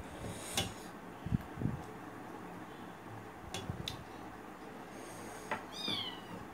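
A short, high animal call falling in pitch near the end, with a few light clicks and two soft low knocks earlier.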